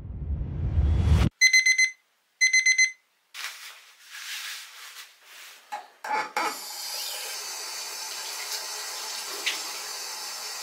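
A low rumble swells and cuts off, then an alarm gives two short bursts of rapid high beeps. After some rustling, a bathroom basin tap is turned on and water runs steadily.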